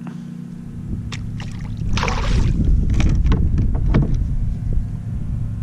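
Fishing kayak on the water: a steady low hum, with a rush of water-like noise about two seconds in and scattered knocks and clicks of gear being handled on the boat.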